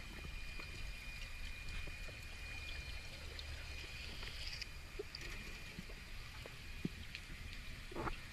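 Underwater ambience: a muffled low water rumble with scattered small clicks and a faint steady high tone, and a short gurgle near the end.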